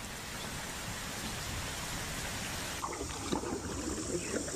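Wet-season water sounds: a steady hiss like rain or running water, changing about three seconds in to trickling, gurgling water.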